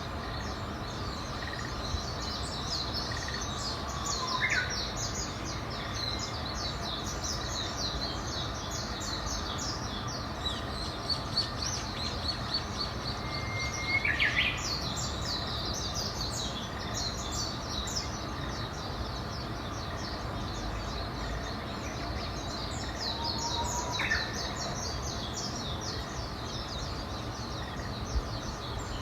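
Birds chirping in a dense, continuous chorus of rapid high twitters. Three times, about ten seconds apart, a louder call rises and then sweeps sharply. A steady hiss of outdoor background noise runs underneath.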